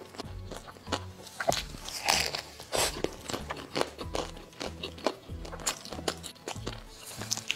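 Close-miked biting and chewing of a crispy chili-coated flatbread: irregular crunches and crackles throughout, over soft background music.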